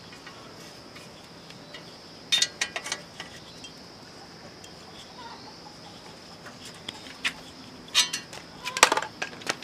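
Two clusters of sharp metallic clinks and taps from tools and motorbike parts being handled during reassembly: one about two and a half seconds in, the other near the end. Under them is a faint steady high-pitched tone.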